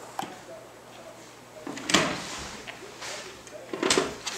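Hard plastic toys clacking and knocking as they are handled, with a sharp clack just after the start, a louder one about two seconds in and another near the end.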